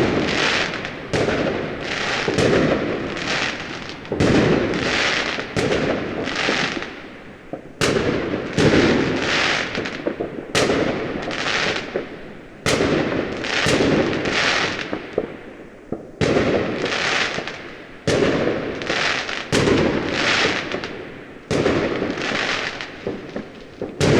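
Fireworks going off one after another, about one bang a second, each bang fading out over a second or so.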